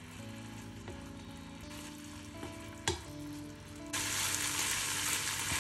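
Diced chicken breast frying in oil in a pan while it is stirred with a wooden spatula: a steady sizzle with one sharp knock about three seconds in. About a second later the sizzle suddenly becomes much louder.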